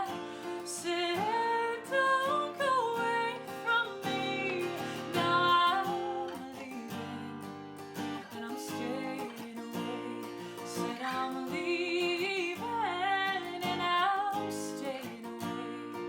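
Song: strummed acoustic guitar with a woman singing a gliding melody line.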